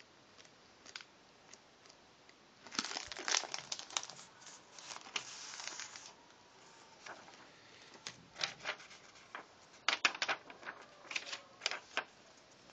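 Clear plastic packaging crinkling and origami paper sheets rustling as they are handled and slid out. The crinkling starts about three seconds in and is densest for a few seconds, then comes back as scattered crackles near the end.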